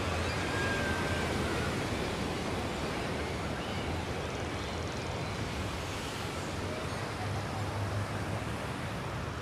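Steady wash of sea surf with a low, intermittent engine hum underneath.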